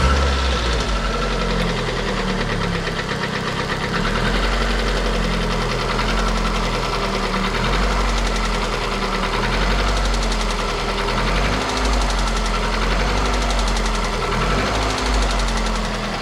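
Warmed-up Kia petrol engine running with its speed rising and falling several times and a knock in it. The mechanic hears it most as the revs drop, from the crank and connecting-rod assembly, and suspects a loose piston pin rather than the crankshaft.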